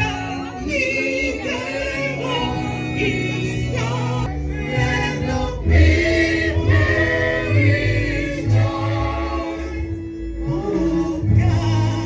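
Group of voices singing a gospel praise song with a bass accompaniment.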